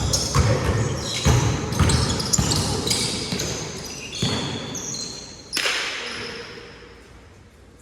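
Basketball dribbled on a hard court, about two bounces a second, thinning out after three or four seconds.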